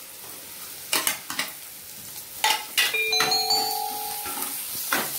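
Onions sizzling in hot oil in a pan, with several sharp knocks as ingredients are tipped in from a plate and stirred with a spatula. About three seconds in, a clear ringing tone sounds for just over a second.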